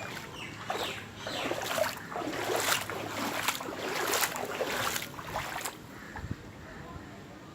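Water splashing and sloshing in a quick, irregular run of strokes that stops about six seconds in.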